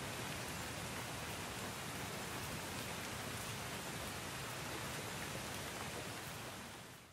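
Steady rain falling, an even hiss that fades out near the end.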